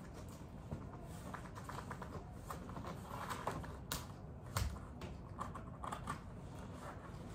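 Hands working at tight packaging on a boxed framed item: scattered small clicks, crinkles and taps, with a sharper knock a little over four and a half seconds in.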